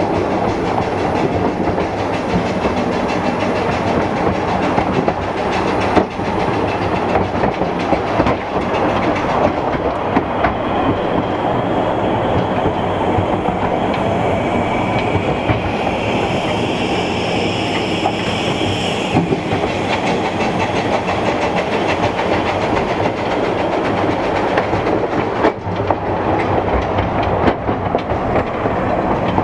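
Narrow gauge railway train running along the track: a steady rumble with occasional sharp clicks from the wheels. A higher-pitched sound rides over it from about ten seconds in until about nineteen seconds.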